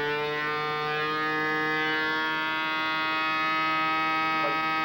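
Toyota Formula 1 V10 engine running at very high revs on a test bench, a steady high-pitched whine that climbs a little at first and then holds. It is being run in a high-rpm development test toward 20,000 rpm.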